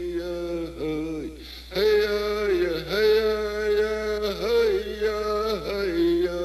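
A man's voice chanting a song: long held notes that drop off at the end of each phrase, with a short pause for breath about a second and a half in.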